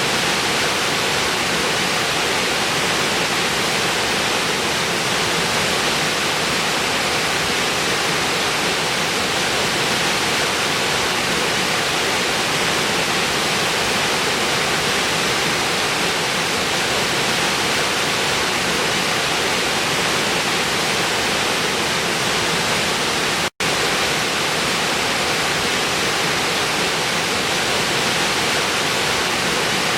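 Waterfall: a steady, even rush of falling water that cuts out for an instant about three-quarters of the way through.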